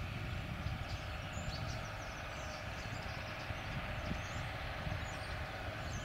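Distant John Deere tractor's diesel engine running steadily while pulling a fertiliser spreader, heard as a low, even rumble. A few short bird chirps come through about a second and a half in and again near the end.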